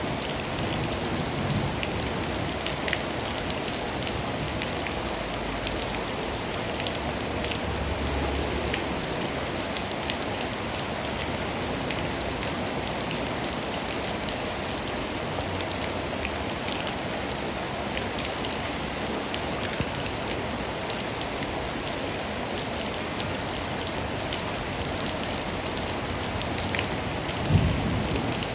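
Steady rain falling, an even hiss with scattered drops ticking close by. A brief low thump sounds near the end.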